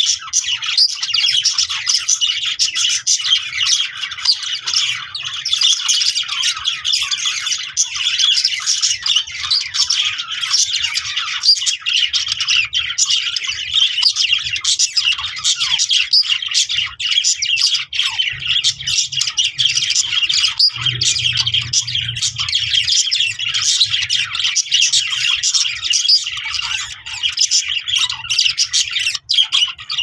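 Budgerigar chatter: a continuous, dense stream of high chirps and warbles without pause.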